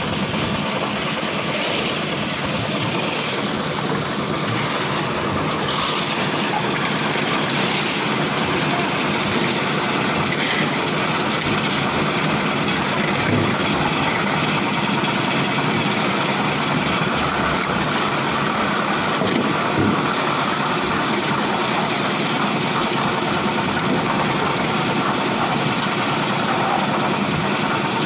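Lift-type concrete mixer machine running steadily, a loud continuous engine-and-machinery noise that does not let up.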